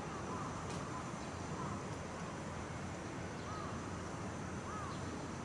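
Outdoor ambience: a steady low rumble with a bird's short arched chirps a few times, twice in the second half.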